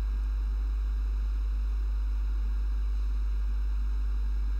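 Steady low electrical hum with faint hiss above it, unchanging throughout.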